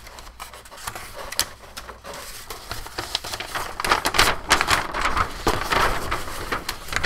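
Large paper plan sheets being handled and unfolded: irregular rustling and crinkling with light taps, growing louder and busier about halfway through.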